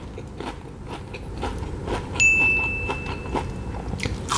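Crunching and chewing of a fried onion ring, in quiet crunches about every half second. Just past halfway, a single bright electronic ding sound effect rings for about a second and a half, marking the on-screen rating.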